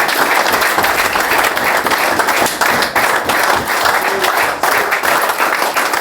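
A small group of people clapping and cheering steadily, with a few shouts mixed in.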